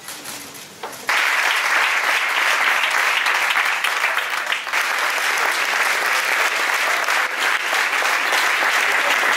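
An indoor audience applauding, breaking out suddenly about a second in and then going on as a steady, dense clapping.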